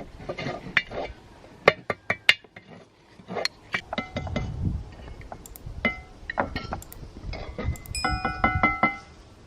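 Dishes and utensils clinking: a run of sharp clinks, several ringing briefly, with a longer ringing clink about eight seconds in.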